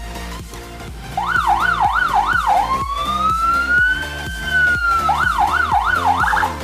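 Landun electronic vehicle siren sounding a fast yelp, about three up-and-down sweeps a second, switching about two and a half seconds in to one slow wail rising and falling, then back to the fast yelp near the end. Background music with a steady beat plays under it.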